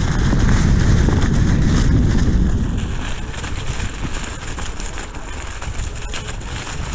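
Wind buffeting a handheld action camera's microphone as it rides along on a Onewheel, mixed with the board's tyre rolling over dry leaves and dirt. A steady, low rush that is loudest for the first couple of seconds, then eases.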